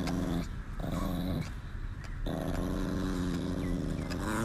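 Chihuahua growling at being kissed, in sustained growls with short pauses: one ends just after the start, a short one comes about a second in, and a long one runs from about two seconds in.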